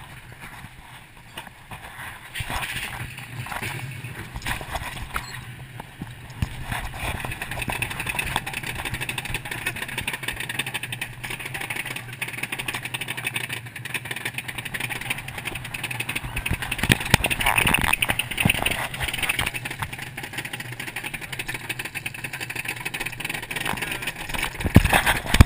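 Steel roller-coaster car climbing the chain lift hill: a rapid, continuous clicking and clattering from the lift chain and anti-rollback, over a steady low hum. The sound picks up a couple of seconds in and gets louder as the car nears the top.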